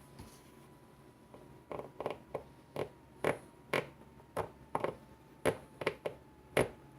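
Small saw blade of a pocket multi-tool sawing back and forth, starting about a second and a half in, with short strokes at about two a second.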